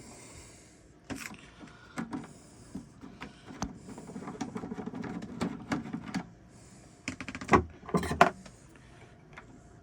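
A screwdriver backing a Phillips screw out of the bread maker's plastic lid: a rough, steady stretch of a few seconds in the middle, among scattered clicks of tool and plastic, with two sharp knocks near the end.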